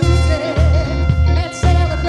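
A woman singing lead with a live band: drums, electric guitars, keyboard and horns playing an upbeat number with a steady beat. She holds a note with vibrato in the first half.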